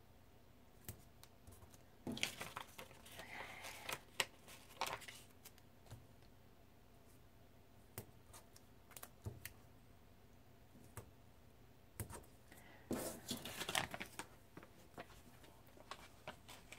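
Faint rustling and crinkling of paper stickers being handled and pressed onto planner pages, in two spells, with scattered light taps between.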